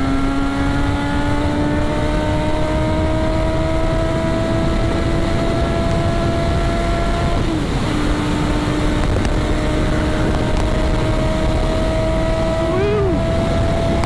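Suzuki GSX-R motorcycle with an aftermarket sport exhaust running under steady throttle on the move, its engine note slowly rising. It eases off briefly about halfway and blips up and back down near the end, over a steady rushing noise.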